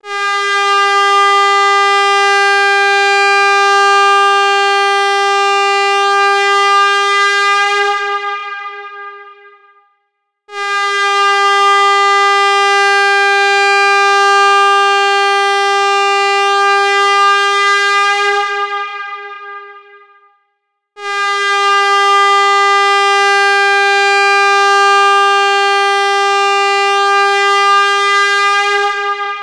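Air horn sounding three long, steady blasts at one pitch. Each is held about eight seconds and then fades away.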